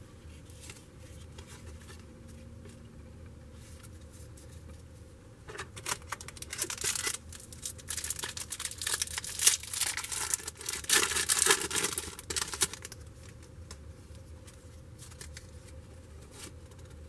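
Wax-paper trading-card pack wrapper being torn and crinkled open, a run of crackling rustles lasting several seconds that starts about five seconds in.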